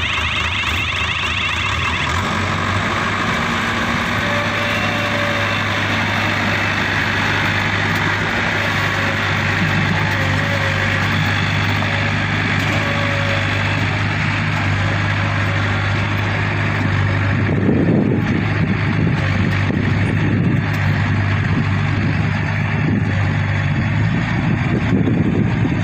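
Combine harvester's diesel engine running steadily, a constant loud mechanical drone.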